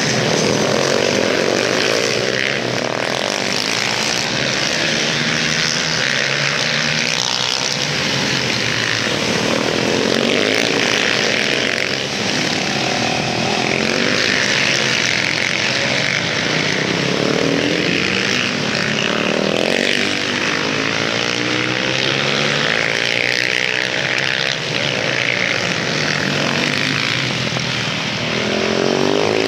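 Several supermoto motorcycles racing on track, their engines revving up and down as the riders accelerate, brake and corner, with the pitch rising and falling as bikes pass.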